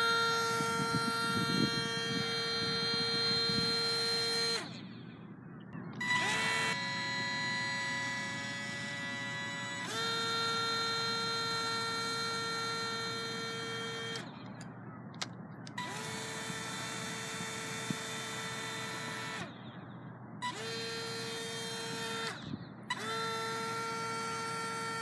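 Micro foam RC airboat's small electric motor spinning a salvaged drone propeller, a steady high-pitched whine that cuts out for about a second several times and starts up again.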